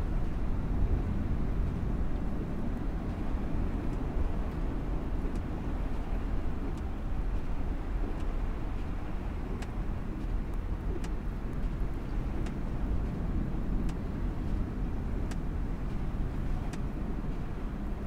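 Steady low rumble of a car driving on a snow-covered road, heard from inside the cabin, with faint ticks about every second and a half.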